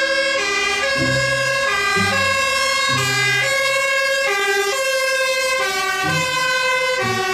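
Fire engine's siren sounding continuously, its tones switching back and forth between pitches.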